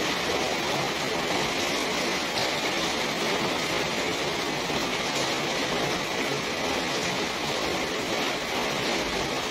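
Steady rain falling, an even hiss with no distinct drops or other events standing out.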